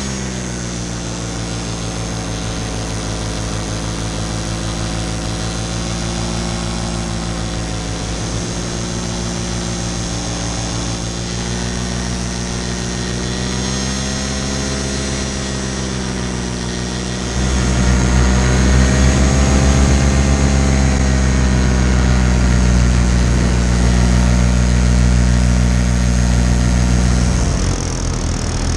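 Paramotor engine and propeller running steadily in flight, the pitch wavering slightly. A bit over halfway through it runs clearly louder, then drops back again near the end.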